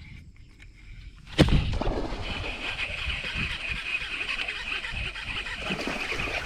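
A bowfin blowing up on the lure at the surface: a sudden loud splash about a second and a half in, then continuous splashing and sloshing as the hooked fish thrashes.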